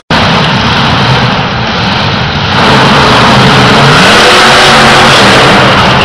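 Monster truck engine running very loud, easing briefly and then revving up about halfway through.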